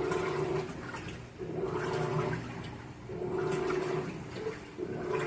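Electrolux LT15F top-loading washing machine agitating a blanket during the rinse cycle: the motor hums and the water sloshes in strokes that repeat about every second and a half to two seconds, with short pauses as the agitator reverses.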